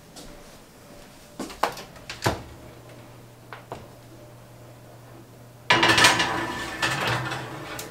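A wall oven door clicks open, then a glass baking dish is slid onto the oven's metal rack with a loud rattling scrape about three-quarters of the way in. A low steady hum runs while the door stands open.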